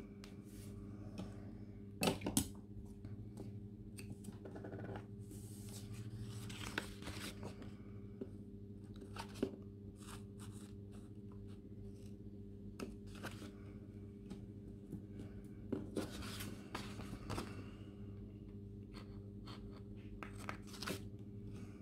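Scissors snipping through paper, with paper rustling as the sheet is handled: scattered short snips and brief rustles over a faint steady low hum.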